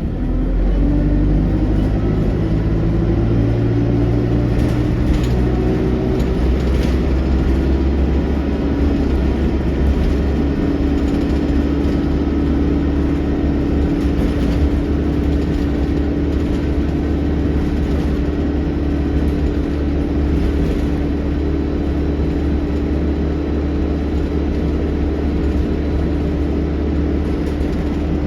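ADL Enviro200 bus engine and driveline heard on board, pulling away and picking up speed, its pitch rising over the first several seconds, then running at a steady pace with a loud vacuum-cleaner-like "hoover" whine.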